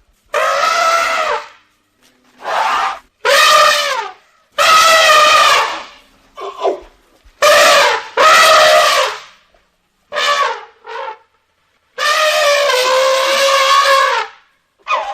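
Baby elephant trumpeting: a run of about ten loud, pitched calls with short gaps between them, most a second or less long, with a longer call of about two and a half seconds near the end.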